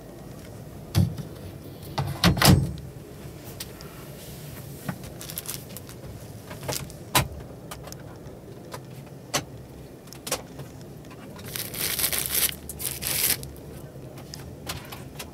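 Handling noise of fittings inside a truck cab: a few knocks in the first three seconds, the loudest about two and a half seconds in, then scattered single clicks and a stretch of rustling near the end.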